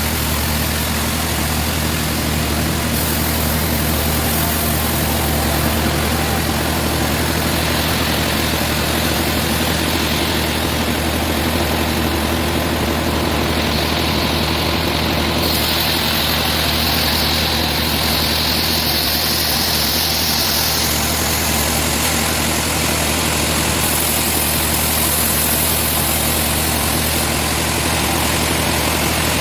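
Sawmill machinery running with a steady low engine drone, and a hiss above it that changes level in steps every few seconds.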